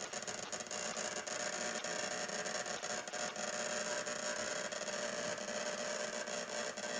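Homemade ignition-coil spark-gap rig running: a steady crackling hiss packed with rapid small clicks, with a faint steady high tone over it.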